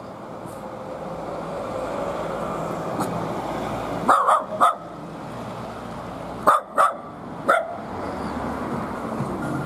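A dog barking: six short barks, three quick ones about four seconds in and three more a couple of seconds later.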